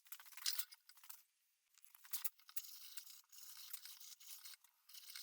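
A knife cutting through leather: faint, irregular scratchy strokes, a few slightly louder ones about half a second and two seconds in.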